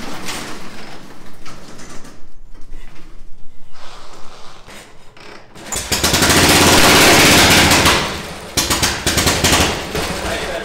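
Pan/shovel Harley-Davidson V-twin of a 1965 chopper running unevenly, with rapid popping firing pulses. About six seconds in it revs up loud and holds for about two seconds, then falls back to irregular firing.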